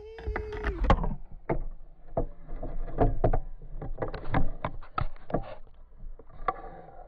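A large muskellunge thrashing in a landing net at the boat's side: a run of sharp splashes and knocks, several a second, as the fish beats the water and the net frame strikes the hull.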